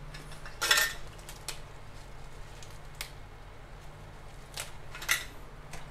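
Short scrapes and clicks of a utensil tossing minced duck larb in a bowl. The loudest comes about a second in, and a few lighter ones follow, over a steady low hum.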